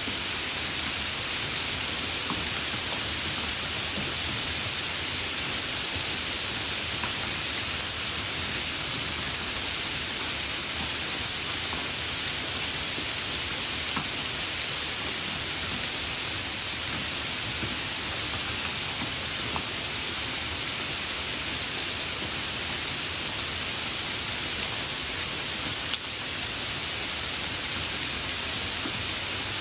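Steady rain: an even, unbroken hiss with a few faint ticks scattered through it.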